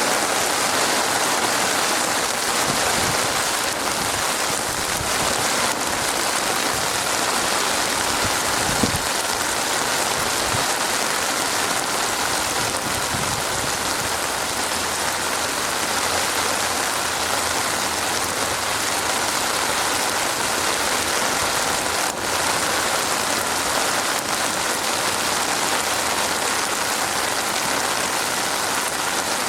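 Steady rain falling, an even hiss of many drops, with a few soft low thumps in the first half.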